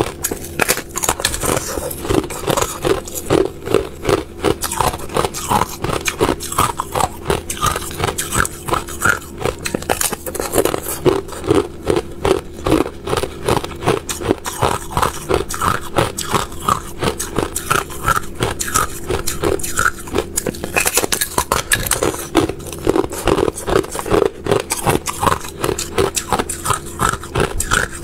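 Thin sheet of clear ice being bitten and chewed close to the microphone: a fast, continuous run of crisp crunches and crackles.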